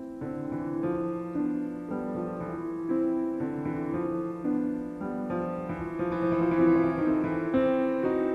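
Piano music: single notes and chords changing about every half second, getting a little louder about six seconds in.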